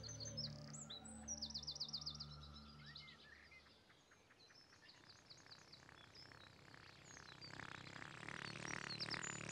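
Small birds chirping and trilling, with a low steady musical tone under them that fades away about three and a half seconds in; the birdsong swells again near the end.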